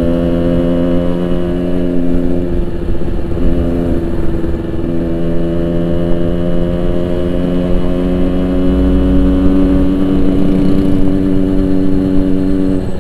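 Yamaha RX-King 135cc two-stroke single-cylinder engine running through an aftermarket Boban exhaust while the motorcycle is ridden, the exhaust note holding a steady pitch at an even cruising speed.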